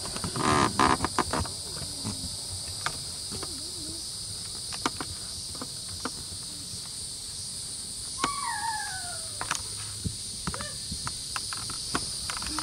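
A steady high-pitched chorus of insects, with scattered clicks of a horse's hooves on grass. There is a short loud burst about half a second in and a single falling whistled call about eight seconds in.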